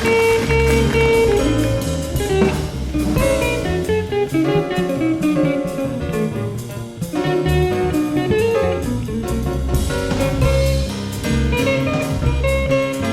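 Live small-group jazz: electric guitar playing lines over walking bass and a drum kit.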